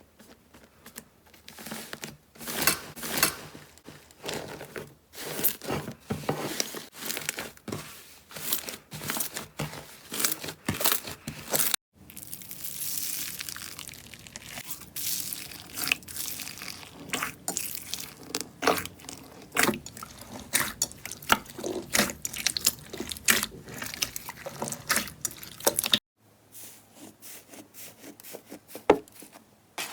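Slime being squeezed, pressed and poked by hand, giving a dense run of irregular wet crackles, pops and clicks. The sound changes abruptly about twelve seconds in and again near the end, as one slime clip gives way to the next.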